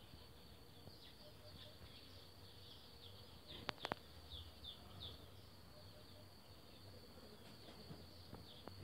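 Faint outdoor background of small birds chirping again and again over a thin steady high tone. Two sharp clicks come about four seconds in.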